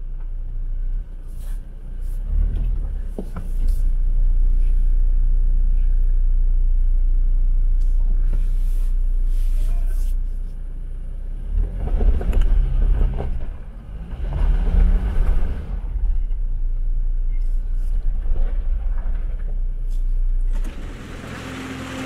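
Off-road 4x4 engine running with a steady low rumble, revving up briefly twice in the middle with a short rise in pitch.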